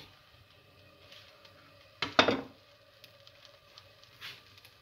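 Cookware set down on a gas stove's metal grate with a sharp clatter about two seconds in, and a softer knock a little after four seconds, over a faint steady hiss.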